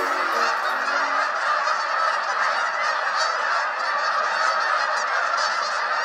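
A large flock of Canada geese honking in flight overhead, many calls overlapping into a dense, continuous chorus.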